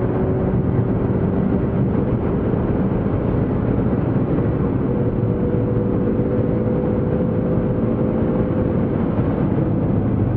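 Car driving at speed heard from inside the cabin: a steady engine note mixed with road and wind noise, holding fairly constant with no braking or gear changes heard.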